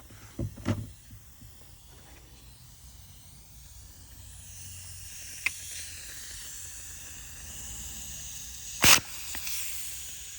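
Compressed air hissing from an air nozzle into a rebuilt motorcycle brake caliper, pushing out its freshly lubricated pistons, which move with hardly any air pressure at all. A few clicks at the start and one sharp knock about nine seconds in.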